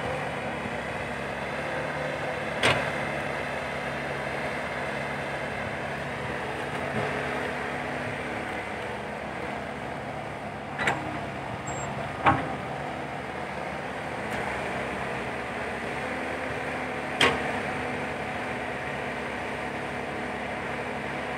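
Komatsu PC120-5 hydraulic excavator's diesel engine running steadily under work as it digs sand and loads a dump truck, with four sharp metal clanks spread across the stretch.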